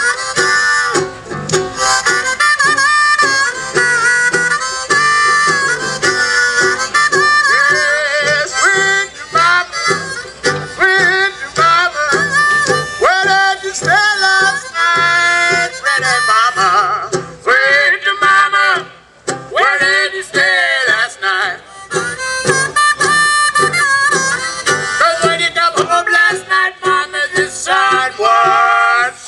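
Old-time folk tune played live: a small brass horn and a horn blown through a long pipe into a large brass bell carry a sliding melody over a strummed banjo with a steady beat.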